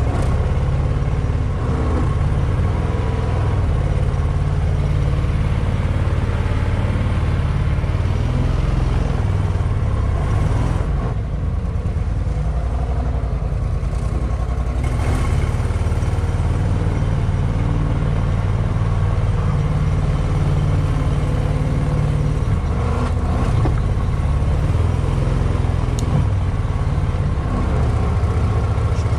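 Duck boat's motor running steadily at an even pace as the boat travels, a constant engine drone heavy in the low end.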